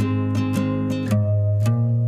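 Background music: a strummed guitar playing chords over a steady bass note.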